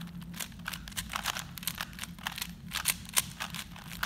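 Plastic 3x3 and 4x4 puzzle cubes being turned fast by hand, their layers clicking in quick, irregular clacks, several a second.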